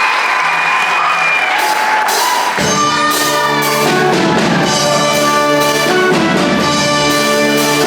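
Audience cheering and whooping, then about two and a half seconds in a band comes in with sustained, brass-led chords over a bass line: the instrumental opening of a show choir's competition set.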